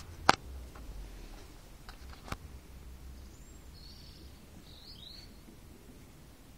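A loud sharp click about a third of a second in and a softer click about two seconds later, over a low rumble. Near the middle, a bird gives a few short high chirps.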